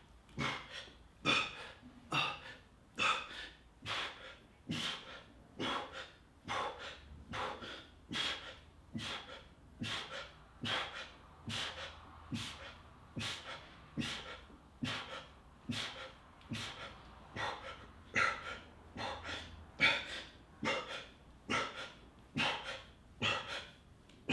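A man breathing hard in short, sharp breaths, about one a second, a breath with each rep of a fast set of dumbbell rows.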